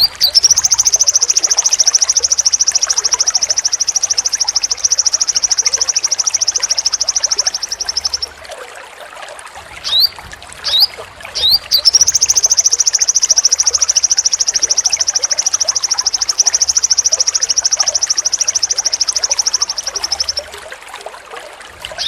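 Sogon sunbird singing its long, sharp 'besetan' trill: a very fast, high-pitched trill held about eight seconds, given twice, with short rising chips before each.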